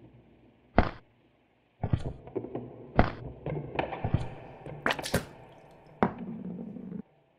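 A string of sharp knocks and thunks, about one a second, over a low steady hum, with the loudest a double crack about five seconds in; the hum and knocks cut off suddenly about seven seconds in.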